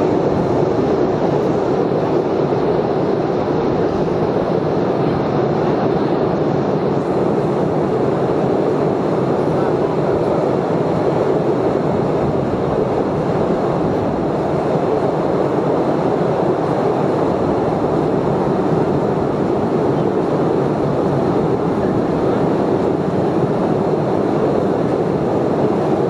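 The open-carriage tourist train of Postojna Cave running steadily on its rails, a loud continuous rail noise.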